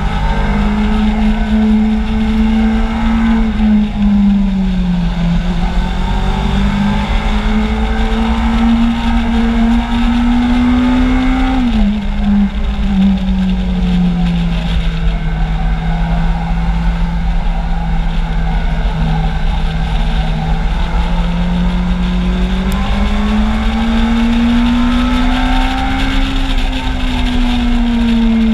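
Kawasaki Z750's inline-four engine running under way, its pitch rising and falling with the throttle, dropping sharply about twelve seconds in and climbing again near the end. Heavy wind rumble on the microphone underneath.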